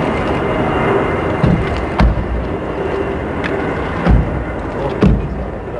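Car doors being handled and shut as passengers step out: a few short thumps, the heaviest about 2, 4 and 5 seconds in, over steady outdoor background noise.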